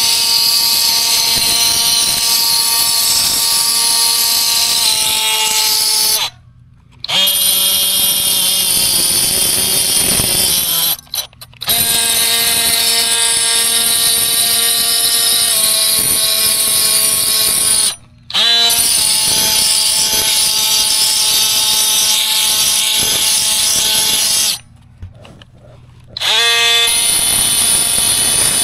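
DeWalt cordless oscillating multi-tool with a diamond blade running against a concrete block wall, scraping hardened mortar from the joints. It makes a steady high buzz that stops four times for a second or two and then starts again.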